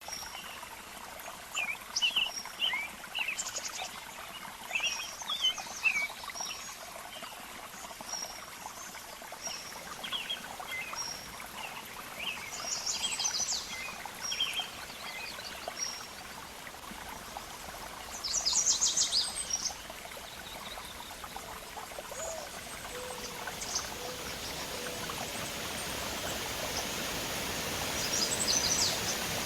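Waterfall rushing steadily, with birds chirping over it and several short bursts of rapid trilling. The rush of water grows gradually louder over the last several seconds.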